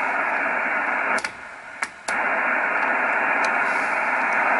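Yaesu FR-101S shortwave receiver giving out steady hiss from its speaker, tuned in lower sideband to an empty 40-meter band with no signals to be heard. A little over a second in, the hiss drops away for about a second, with a few clicks, then comes back.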